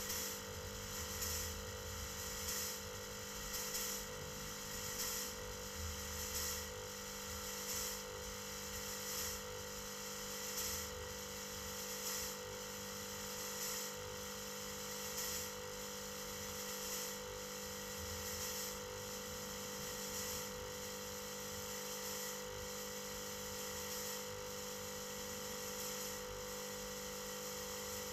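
Fog-It thermal fogging machine running, a steady electrical hum with a soft pulse about every one and a half seconds as it pushes out fog; the pulsing fades after about twenty seconds and the hum carries on steady.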